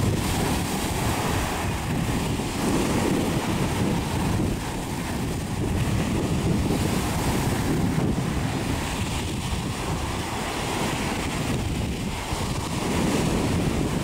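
Small ocean surf breaking and washing up the sand, a steady rushing that swells and eases as waves come in, with wind buffeting the microphone.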